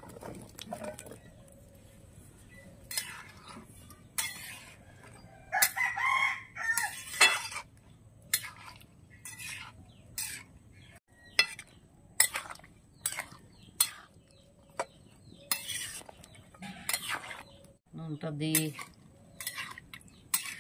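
Metal spatula scraping and clinking against an aluminium karahi as chunks of ridge gourd and potato are stirred, in a string of sharp strokes. A rooster crows about six seconds in.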